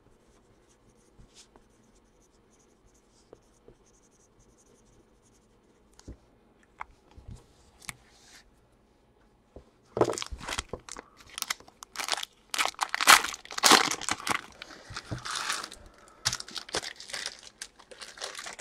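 A foil trading-card pack wrapper being torn open and crinkled. It starts about ten seconds in, after a near-silent stretch with a few faint taps.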